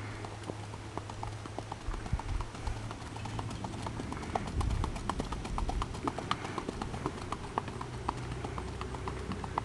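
Hoofbeats of a spotted gaited pony racking on a dirt track: a quick, even clip-clop.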